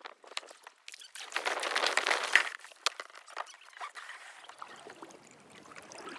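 Water splashing and trickling, with a louder burst of splashing about one to two and a half seconds in, then softer trickling.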